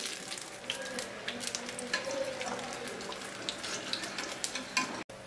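Batata vadas (gram-flour-battered potato balls) deep-frying in hot oil in a steel kadai over a low gas flame: a steady sizzle dotted with many small crackling pops.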